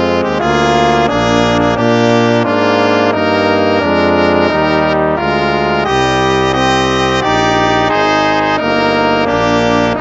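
Instrumental hymn music played in full, sustained chords, moving to a new chord about once or twice a second at a steady hymn pace.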